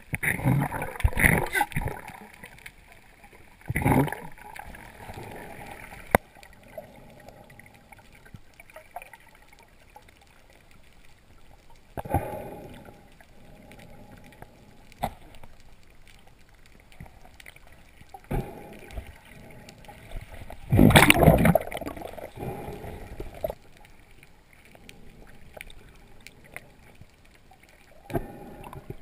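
Muffled underwater water noise with about half a dozen bursts of gurgling and rushing water. The longest and loudest burst comes about three-quarters of the way through.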